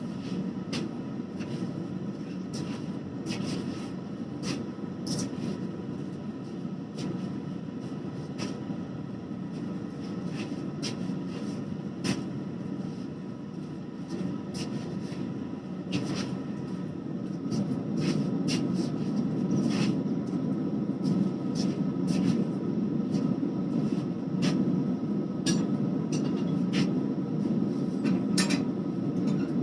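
Steady low rushing roar of a forge running, which grows a little louder about two-thirds of the way through, with scattered light metallic clicks and ticks while a hot 1095/15N20 damascus billet is twisted.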